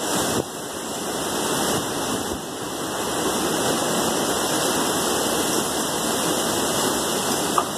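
Hurricane wind and heavy rain blowing through trees: a steady, continuous rushing noise.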